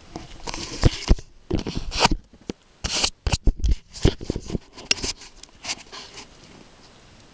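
Camera-handling noise: a dense run of irregular clicks, knocks and short scrapes close to the microphone as the camera is moved about, dying away about six seconds in.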